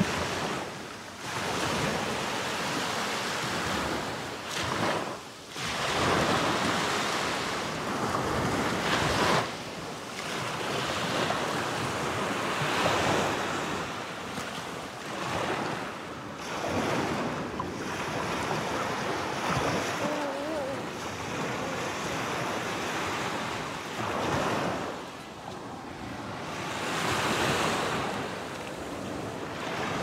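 Small sea waves washing up on a sandy beach, the surf swelling and fading every few seconds, with wind buffeting the microphone.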